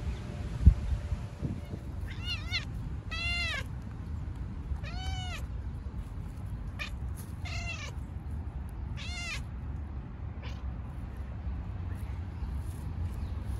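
A cat meowing repeatedly: about five high-pitched meows, each rising then falling in pitch, with a few fainter ones among them. A single thump about a second in, over a steady low background rumble.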